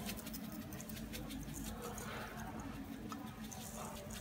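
Granulated sugar pouring onto mashed pond-apple pulp in a stainless steel bowl: a fine pattering of many small grains, over a steady low hum.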